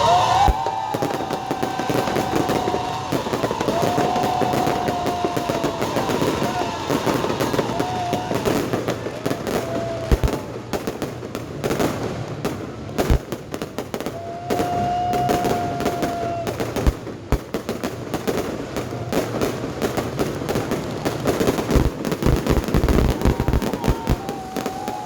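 Fireworks display: continuous rapid crackling with scattered low booms, and a few held whistling tones early on and around the middle.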